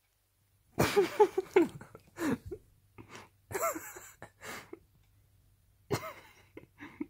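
A person's stifled laughter in repeated short bursts, a quick run of giggles about a second in and more outbursts later, with breathy pauses between them.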